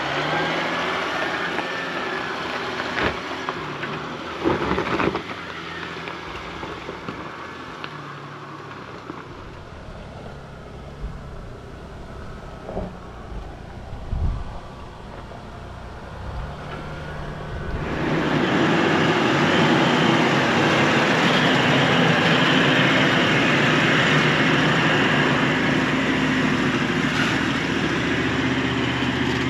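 A four-wheel drive engine works up a steep dirt hill, with a few knocks along the way. About two-thirds of the way in, the sound jumps to the loud, steady drone of a Toyota Land Cruiser 76's V8 turbo-diesel pulling hard up the slope, mixed with tyres on loose dirt.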